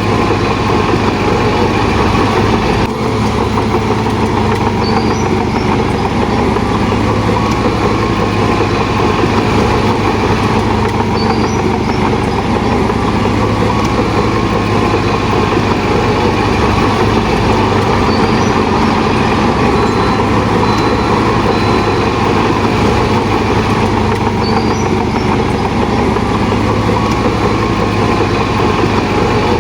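Heavy diesel engine of a Shantui DH17 bulldozer running steadily, with a deep hum and a constant rumble and a brief dip about three seconds in.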